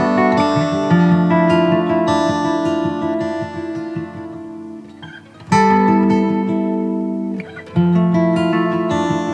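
Background music of strummed acoustic guitar with a steady pulse. It fades away about four to five seconds in and comes back suddenly at about five and a half seconds, with another brief break near seven and a half seconds.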